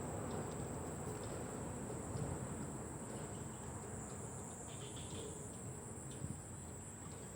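Insects chirring, a steady high-pitched drone, with a few faint clicks.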